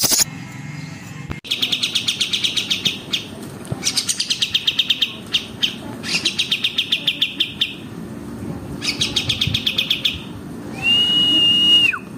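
Recorded songbird song: a fast rattling trill repeated about five times with short pauses, then one long steady whistle near the end that drops away sharply.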